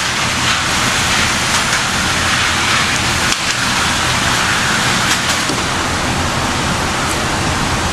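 Steady rushing noise, like strong airflow or wind, with a few faint clicks.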